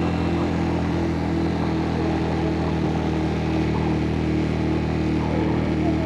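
Suzuki GN125's single-cylinder four-stroke engine running at a steady speed while the motorcycle is ridden, its note holding level with no revving.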